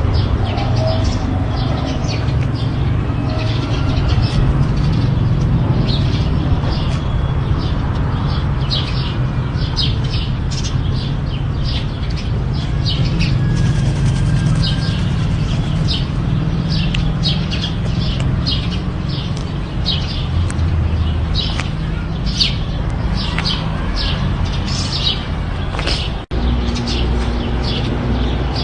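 Birds chirping with many short, repeated chirps over a steady low rumble.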